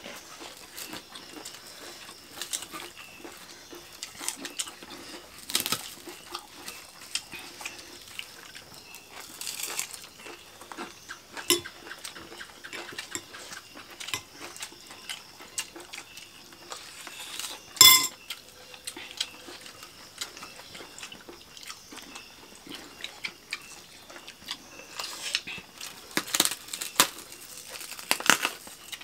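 Eating sounds: chewing and the crunch of crackers, with scattered small clinks of a metal spoon against a bowl; the loudest is a single ringing clink about 18 seconds in, and the clicks bunch together near the end.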